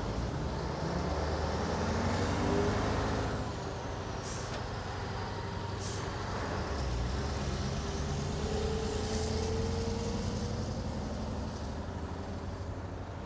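Bus terminal ambience: large vehicle engines idle and run with a steady low rumble. Two short hisses of air come about four and six seconds in.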